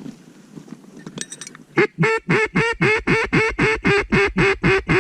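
Mallard duck call blown in a long, fast hail-style series of loud quacks, about four or five a second, each dropping in pitch, starting about two seconds in. A brief high whistle comes just before it.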